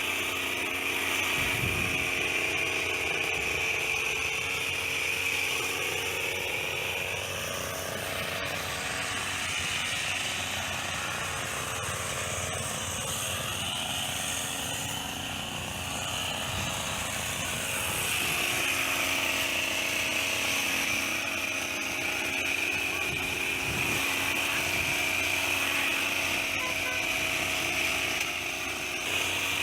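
Petrol hedge trimmer's small engine running steadily, easing off in speed for several seconds in the middle and picking up again.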